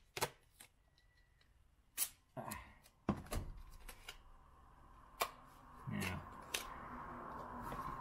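Duct tape being handled and pulled off the roll: scattered sharp rips and crackles, then a longer, steadier rasp of tape unwinding from about six seconds in.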